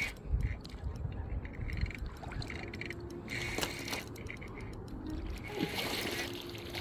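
Soft background music with short held tones that recur, over low rumbling noise.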